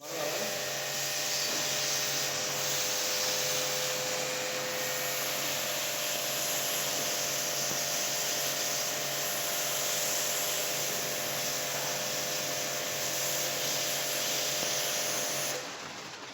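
A motor-driven machine running with a steady loud hiss over a low hum, cutting off about a second before the end.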